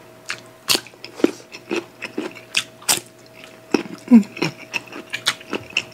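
Close-miked eating: crisp bites and wet chewing clicks from green mango slices eaten with rice and fish, coming at irregular intervals.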